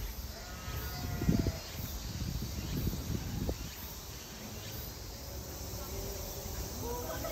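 High insect chirring that pulses about once a second over a steady outdoor background. Dull low thumps come about a second in and again around three seconds in.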